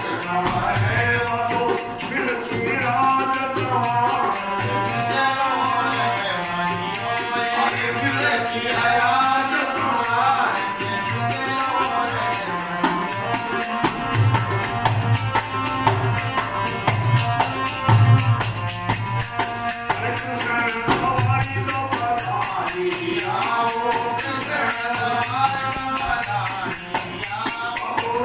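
Rajasthani devotional folk music: a Bishnoi bhajan sung to harmonium, with a dholak drumming and small hand cymbals jingling steadily in time. The drum beats are heaviest from about halfway through.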